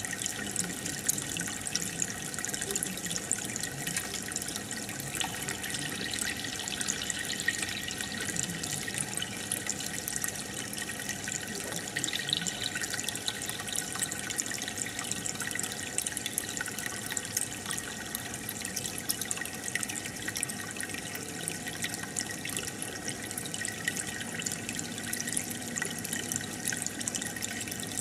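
Aquarium filter and air bubbles: steady bubbling, splashing water with many tiny pops.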